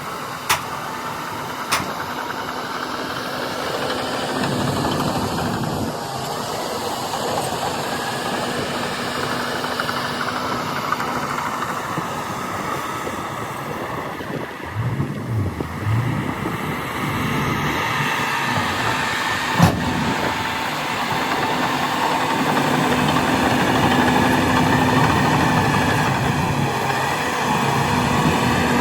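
Diesel engine of a Shantui DH17 C2 crawler bulldozer running continuously, its level dipping about halfway through and then building again. A few sharp knocks are heard near the start and once about two-thirds of the way in.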